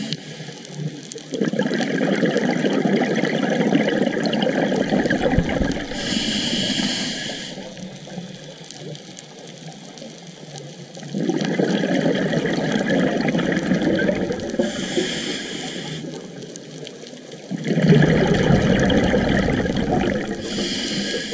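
Scuba regulator breathing underwater, heard through the camera housing: three short hissing inhalations through the demand valve, each followed by a longer rush of exhaled bubbles, in a slow cycle of about eight seconds.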